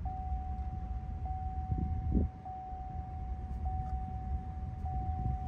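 Low rumble of a vehicle rolling slowly, heard from inside the cab. Over it a single steady high-pitched tone, like a held beep, starts suddenly and carries on with a slight hitch about every second and a quarter. A couple of dull thumps come about two seconds in.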